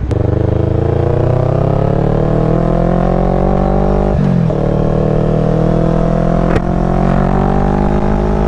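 CFMoto 400NK parallel-twin engine through an aftermarket exhaust, accelerating under load. The revs climb steadily, drop sharply with an upshift about four seconds in, then climb again in the next gear.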